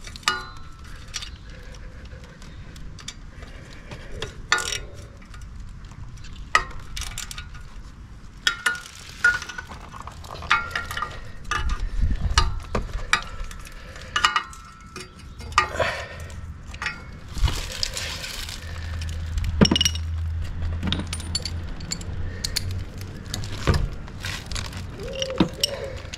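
A 10 mm spanner loosening the steel exhaust flange nuts on a motorcycle's header pipes: irregular metallic clinks and taps, some ringing briefly.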